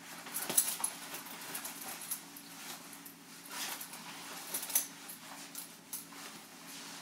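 Sacai bomber jacket being put on and adjusted: its shell fabric rustles in short irregular swishes and its metal zip pulls clink now and then, over a faint steady low hum.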